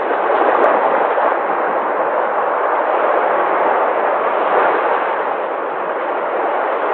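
Sea waves breaking and washing, a continuous rushing surf that swells and eases slowly.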